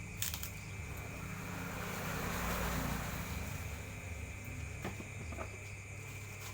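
A vehicle passing on the road, its noise swelling to a peak about two and a half seconds in and then fading, over a steady high insect chirr and low hum.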